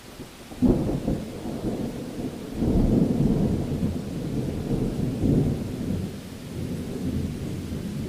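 Heavy rain with thunder: a clap breaks in about half a second in, then rolls on as a deep rumble that swells and fades several times.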